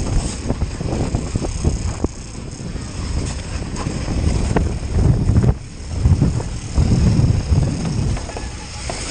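Mountain bike descending fast over snow: heavy wind buffeting on the microphone over the tyres running on snow, with a few sharp clicks and knocks from the bike.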